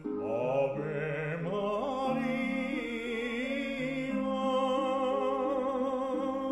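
Classical-style music: a solo voice singing long notes with wide vibrato over sustained accompaniment chords.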